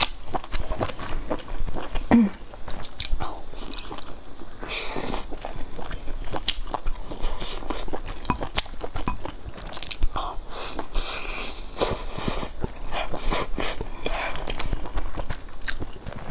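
Close-up mouth sounds of someone eating a sauce-dipped, meat-filled steamed bun: bites and chewing with many small clicks and smacks.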